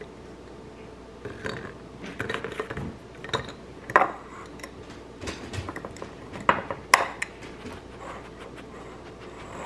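Hard baked dog biscuits dropped by hand into a glass clip-top jar, clinking and knocking against the glass and each other in an irregular run of small clatters. Sharper clinks, the loudest about four and seven seconds in, as the glass lid with its wire clasp is closed.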